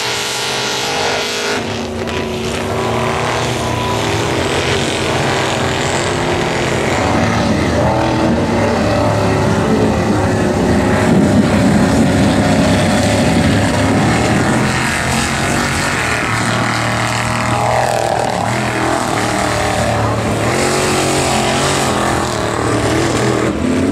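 Engine of a stretched square-body Chevy mega mud truck running hard under load as it drives through a mud bog, with mud and water slinging off its big tires. The engine note rises and falls and is loudest about halfway through.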